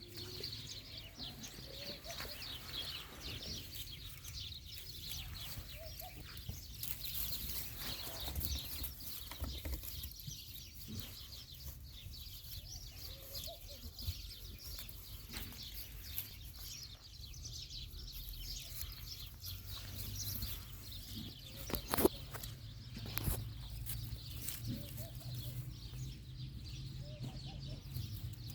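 Birds chirping and singing, with a few short goat bleats from baby goats over a low steady rumble. A single sharp knock about three-quarters of the way through is the loudest sound.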